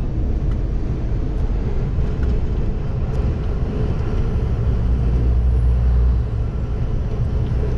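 Inside a moving truck's cab: steady drone of the engine at highway cruise with road and tyre noise. The low engine hum swells briefly about five seconds in.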